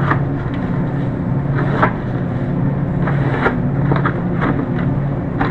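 Steady low hum with scattered light knocks and rustles as cardboard cases of stock are handled.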